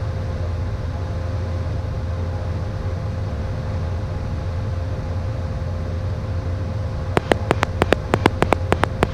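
Steady cockpit hum of a Premier I jet in flight, with one steady tone through it. Near the end, about a dozen sharp clicks in quick succession: the radio push-to-talk key clicked repeatedly on the airport frequency to switch on the pilot-controlled runway lights.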